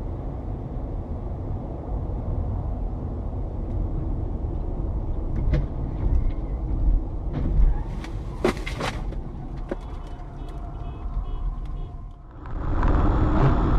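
Steady low road and engine rumble heard from inside a car at highway speed, with a few sharp clicks and knocks in the middle and a quick run of short high pips after them. A louder rumble cuts in abruptly near the end.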